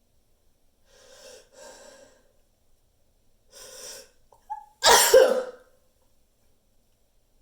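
A person's sneeze buildup: three noisy, gasping inhales, the first two close together, then a brief catch in the breath and one loud sneeze about five seconds in.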